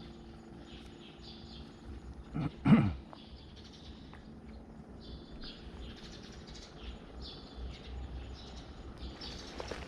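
Birds chirping in short repeated calls over a low steady rumble, with one loud short cry that bends in pitch about three seconds in.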